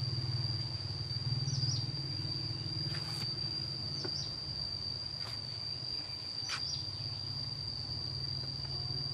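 A steady high-pitched insect trill that does not break, over a low rumble, with a few faint short chirps and several faint clicks.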